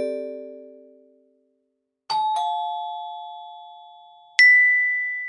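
Chime sound effect: bell-like notes ring out and fade, then two struck notes sound a quarter second apart about two seconds in, and a single high, bright ding comes about four seconds in and rings on as it dies away.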